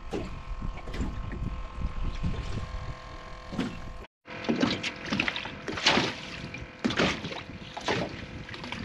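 Wind buffeting the microphone on an aluminium jon boat, with a steady hum from the spot-lock trolling motor holding position. After a cut about four seconds in, choppy water slaps against the hull roughly once a second.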